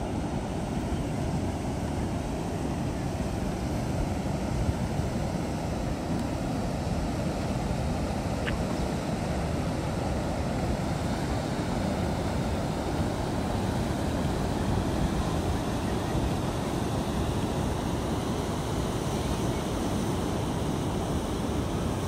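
Steady rush of water spilling over a wide, low stone weir into a lake.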